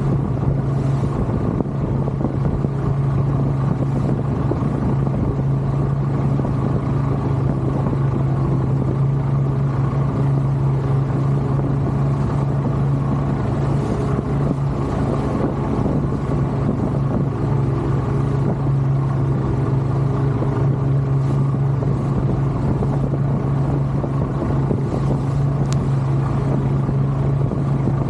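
Boat engine running steadily under way, a constant low drone that holds an even pitch throughout.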